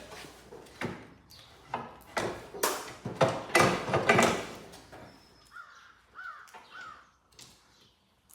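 Clattering knocks and scraping of tools and metal parts as work goes on at the garden tractor's engine, loudest in the first half. Later come three short chirps, about two a second.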